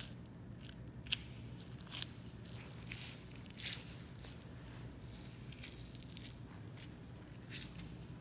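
Butcher's knife slicing through the fat and membrane of a Kuroge Wagyu beef outside plate, in short crisp crackling, scraping strokes with a few sharp clicks. A steady low hum runs underneath.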